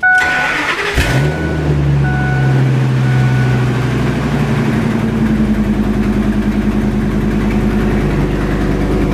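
2003 Ford F250's 6.8-litre V10 cranking for about a second, then catching and running loud with a fast pulsing beat from an exhaust leak. It starts because the fuel pump's failing ground, which dropped about 8 volts under load, has been bypassed with a jumper to a good ground. A short electronic beep sounds a few times in the first three seconds.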